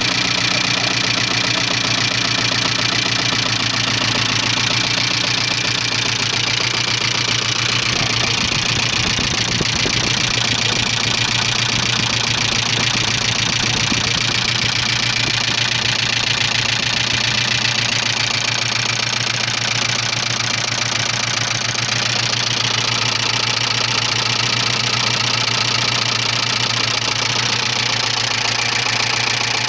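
1985 Subaru Leone's EA82 flat-four engine running steadily at idle with a rapid, even knocking from inside the engine, a fault whose source the owner does not know.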